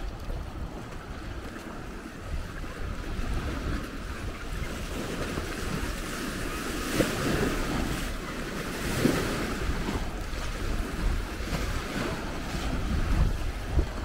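Wind buffeting the microphone with a low rumble, over small lake waves washing and lapping at the shore, with a few louder splashes.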